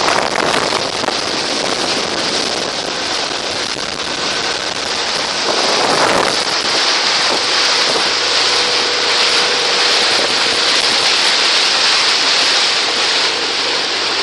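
Wind rushing over the microphone and water churning in the wake of a motorboat under way, with a faint steady hum coming in about halfway through.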